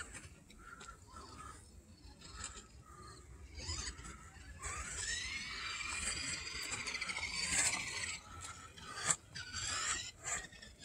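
Small electric motor of a toy RC car whining up in pitch about halfway through, running for a few seconds with a gritty gear and rubbing noise, then cutting out.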